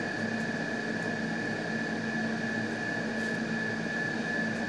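Steady mechanical hum with a constant thin high whine over it, with a few faint small ticks.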